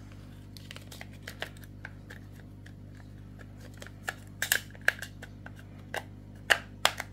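Hard plastic-and-metal clicks and knocks of an Umarex HDP .50 pistol's slide being fitted back onto its frame over the recoil spring: a few light clicks, then several sharper clacks in quick succession in the second half.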